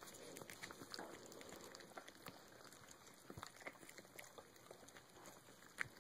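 Faint wet smacking and small clicks of miniature dachshund puppies chewing and licking raw chicken drumsticks, with one sharper click near the end.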